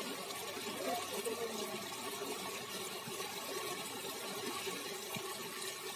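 Steady outdoor ambience at the water's edge: an even hiss with faint water sounds. A faint voice comes in about a second in.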